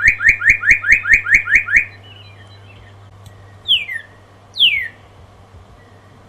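Northern cardinal singing: a fast run of about nine rising whistled notes, some five a second, then after a pause two loud down-slurred whistles.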